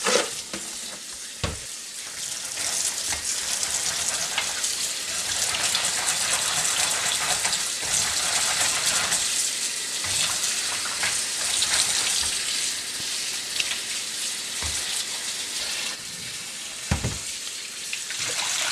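Kitchen tap running into a plastic bowl of ponnanganni greens while hands swish and rinse the leaves: a steady splashing hiss of water. A dull thump comes about a second and a half in and another near the end.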